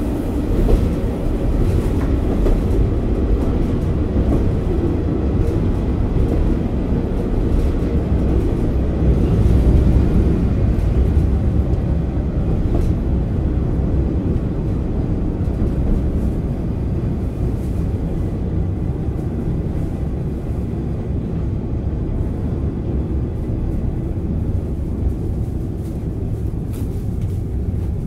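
JR Kyushu KiHa 40 8000-series diesel railcar running, its replacement Komatsu diesel engine and wheels on the rails giving a steady low rumble, heard from inside the car. It is loudest about ten seconds in, then eases off a little.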